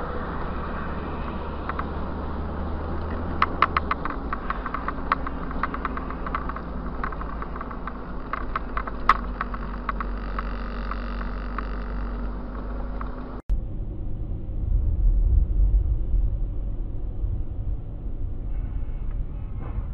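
Car driving, heard from inside through a dash camera: a steady engine and road rumble with a scatter of sharp clicks a few seconds in. About two-thirds of the way through the sound cuts abruptly to another recording with a heavier low rumble.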